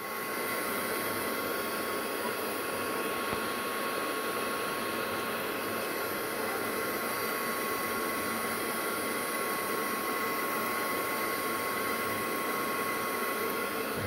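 Homemade 12-volt vacuum cleaner's high-speed 385 DC motor running steadily, a high whine over a rush of air, as it sucks up scraps of paper through its plastic-bottle nozzle.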